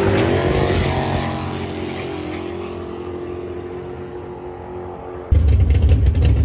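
Drag race car's engine pulling away down the strip, its steady note fading as it gets farther off. About five seconds in, the sound cuts suddenly to a loud, low engine running close by.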